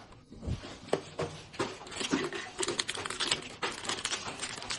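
Small plastic packaging crinkling and crackling in quick irregular clicks as a mini blind bag is handled and opened.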